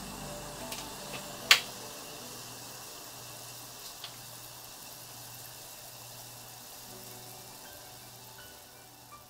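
Red wine boiling in a stainless steel saucepan as it is reduced: a steady bubbling that grows slightly quieter toward the end. A sharp click about a second and a half in.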